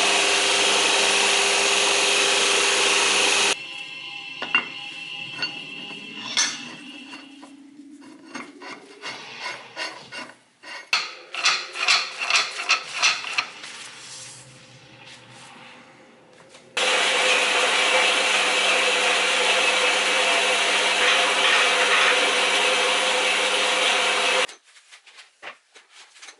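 Portable metal-cutting bandsaw running through a threaded steel rod: a loud, steady cut that stops after about three and a half seconds. Then comes a long run of irregular metallic clicks and knocks as parts are fitted. Past the middle, a second long, steady cut with much the same sound runs for about eight seconds and stops shortly before the end.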